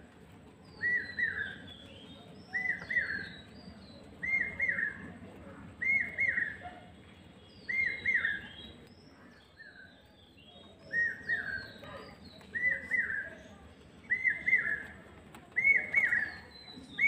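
Birds chirping: a short two-note arching call repeats about every one and a half to two seconds, with higher, thinner chirps between the calls. The calls pause briefly about halfway through.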